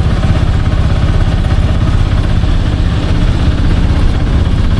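Taxi engine running steadily on the move, heard from on board: a loud, even low rumble of fast firing pulses.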